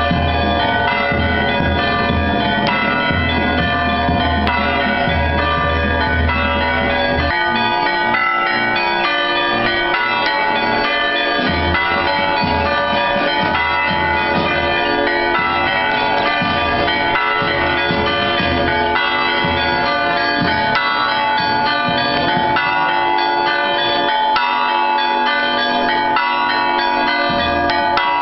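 Orthodox church bells ringing a fast, continuous festive peal, many strikes overlapping without pause.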